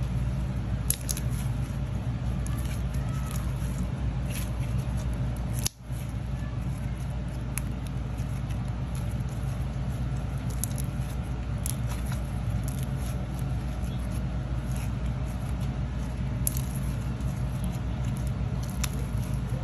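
Clear slime being squeezed and stretched by hand, giving scattered small crackles and pops, over a steady low hum.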